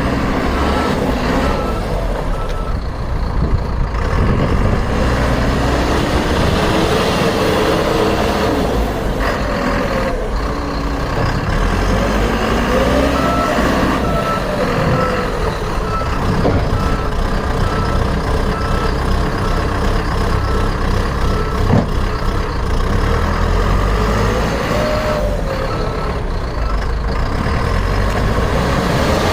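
SDLG B877F backhoe loader's diesel engine running steadily under work, its pitch rising and falling a few times, with a reversing alarm beeping evenly near the start and again in the middle.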